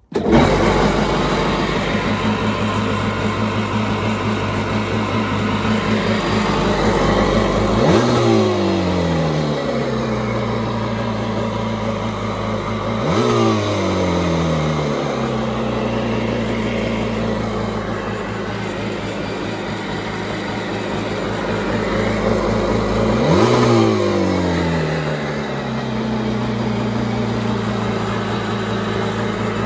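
Yamaha Superjet stand-up jet ski's 61X two-stroke twin engine running on its trailer, out of the water, idling steadily. It is blipped three times, about eight, thirteen and twenty-three seconds in, each rev climbing sharply and falling back to idle. The ski, bought not running, now runs.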